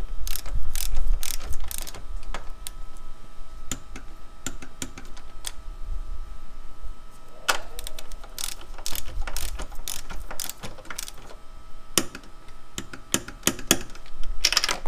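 Long-handled socket wrench ratcheting in several bursts of rapid clicks, with pauses between them, as nuts at the top of a Honda/Acura Integra's front shock tower are tightened.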